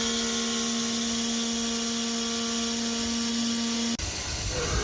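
CNC router's oscillating knife head vibrating with a steady hum and hiss, switched off abruptly about four seconds in.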